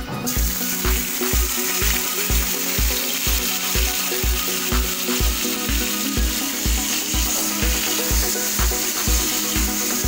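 Minced garlic sizzling in hot oil in a frying pan, starting suddenly just after the start and stirred with a metal spatula. Background music with a steady beat plays under it.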